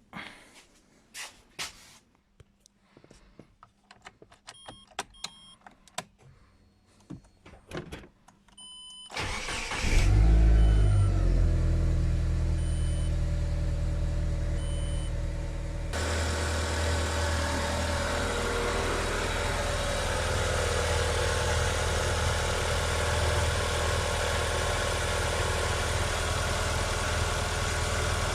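Scattered light clicks and knocks, then about nine seconds in the Great Wall Hover 3's petrol engine is cranked, catches, flares up briefly and settles into a steady idle, its timing belt freshly refitted after jumping four teeth.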